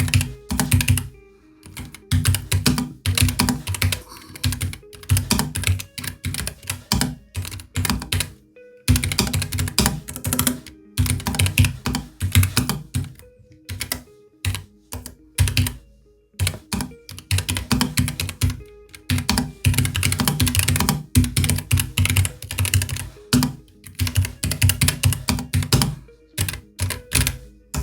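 Typing on a Keychron K3 Pro low-profile mechanical keyboard: fast runs of key clacks in bursts, broken by short pauses of about a second.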